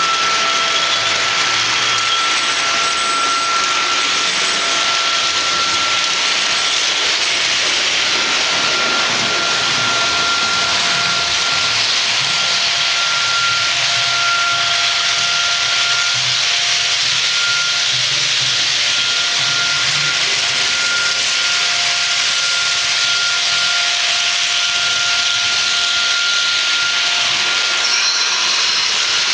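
Märklin model train running on the track: a steady hiss with a high steady whine from its drive.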